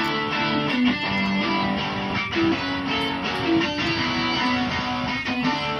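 Instrumental background music, with no singing.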